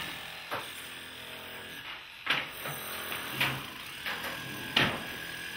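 Building work on old masonry: four sharp knocks of tools striking stone and rubble at uneven intervals, the last the loudest, over a faint steady machine hum.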